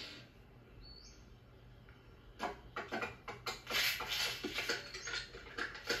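Cartoon film sound effects heard through a TV speaker: nearly quiet at first, then from about two and a half seconds in a quick, irregular run of light patters and clicks.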